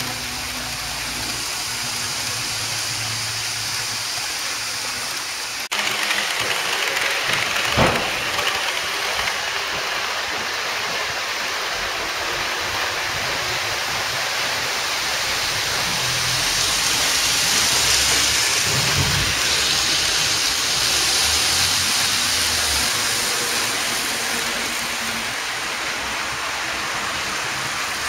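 N-gauge model trains running on the layout's track, a steady rolling hiss of small wheels and motors. The hiss changes abruptly and gets a little louder about six seconds in, a single sharp knock follows about two seconds later, and it swells gently in the middle.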